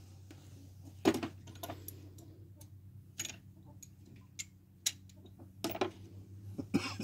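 Scattered sharp metallic clicks and taps, unevenly spaced, from hand tools working on bolts of a Jeep Liberty 3.7 L V6 engine during teardown, over a low steady hum.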